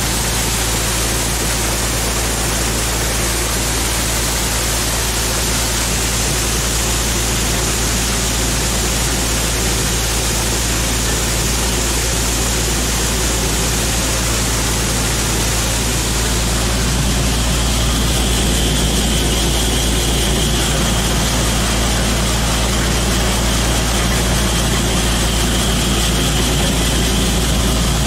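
Gleaner combine running and unloading: a steady engine hum under the hiss of grain pouring from the unloading auger into a pit. About seventeen seconds in, a thin steady whine joins.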